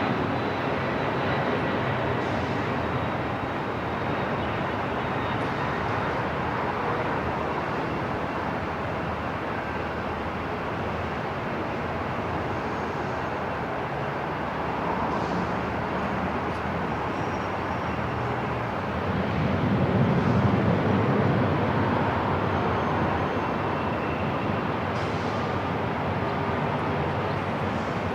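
Airport ambience: a steady wash of noise, with a low rumble that swells and fades about twenty seconds in.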